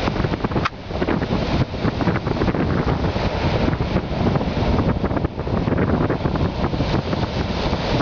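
Strong wind buffeting the microphone over the rush of surf breaking on the shore.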